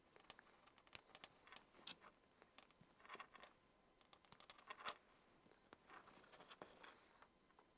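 Faint handling noise of hands working electrical wires and small plastic lever-nut wire connectors: light rustling with a few sharp clicks, the loudest about a second in.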